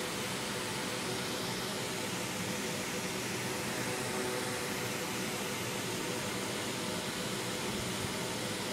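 Steady hiss with a faint hum underneath, even throughout, with no distinct events.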